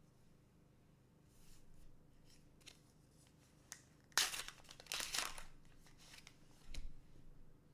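Plastic card booster pack wrapper being torn open and crinkled, with small ticks of handling and two louder tearing rustles about four and five seconds in, then a soft thump.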